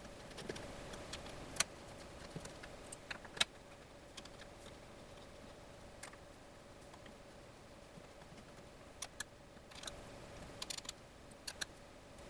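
Scattered small metal clicks and taps of an Allen key turning the screws that hold an aluminum plate down on an MDF board, a few in quick pairs, over a faint steady hum.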